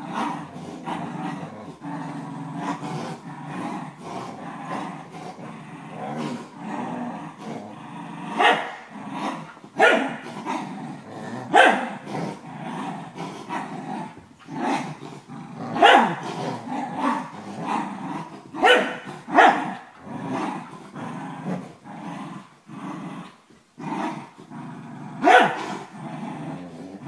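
A corgi and a German shepherd puppy playing tug of war with a rope toy: steady play growling, broken every few seconds by sharp barks from about eight seconds in.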